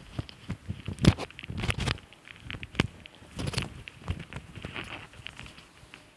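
Towel rubbed briskly over a man's head and ears, a rough scrubbing rustle in irregular strokes with sharp slaps and snaps, the loudest about a second in.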